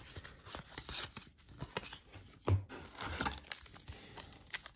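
Faint rustling and clicking of trading cards being flipped through by hand, with a soft thump about two and a half seconds in, then the crinkle of a sealed card pack's wrapper being handled from about three seconds on.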